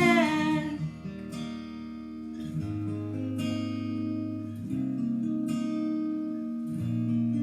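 Acoustic guitar strumming chords in an instrumental gap of a pop song, a fresh chord roughly every second; a sung note trails off in the first second.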